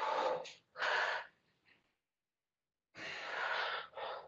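A woman breathing hard from the effort of push-ups: two quick breaths, then after a pause of about a second and a half a longer breath out followed by a short one near the end.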